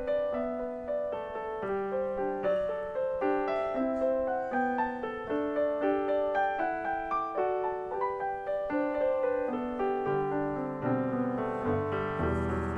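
Background piano music, a gentle melody of single notes with a bass line coming in near the end.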